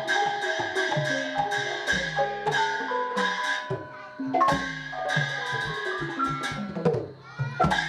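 Background music on mallet percussion: a quick, even stream of struck, xylophone-like notes that ring briefly, with a low pulse underneath.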